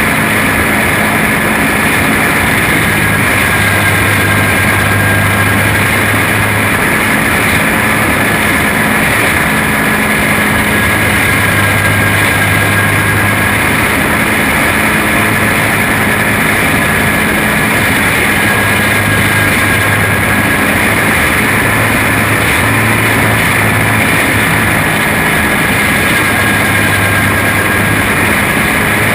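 Flathead racing kart engine at full racing speed, heard up close from on board: a loud, steady engine drone whose pitch barely changes.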